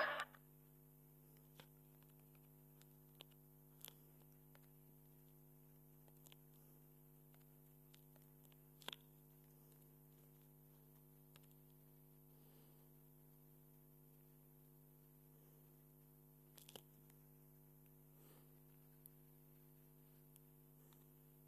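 Near silence: a faint steady hum, with a few faint scattered clicks.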